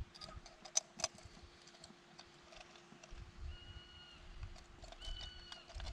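Faint scattered clicks of pliers and tackle while a wels catfish is unhooked at the surface, the sharpest two about a second in. Two short, steady high whistled notes sound around the middle and again near the end.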